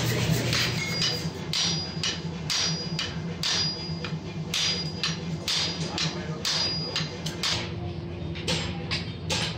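Hand hammer striking red-hot steel bar on an anvil in a steady rhythm of about two blows a second, each blow with a short metallic ring from the anvil.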